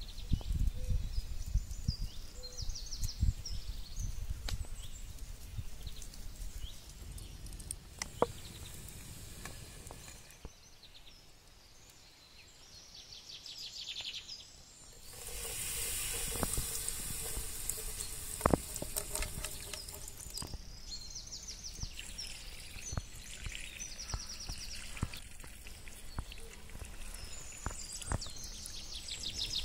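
Small birds chirping on and off, with a few light knocks. About halfway through, hot oil in a frying pan sizzles for several seconds as ground paprika is fried in it.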